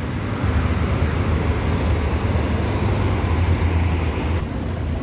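Road traffic on a city street: a steady low rumble with tyre and engine noise from passing vehicles, easing off a little about four and a half seconds in.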